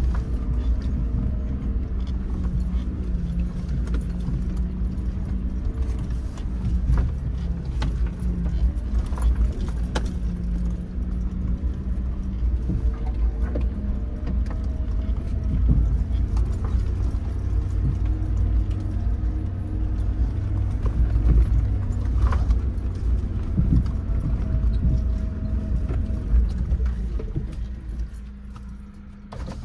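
Suzuki Jimny engine running steadily, heard from inside the cabin as the car crawls along a rough dirt track, with frequent rattles and knocks from the body and loose items over the bumps. It gets quieter near the end.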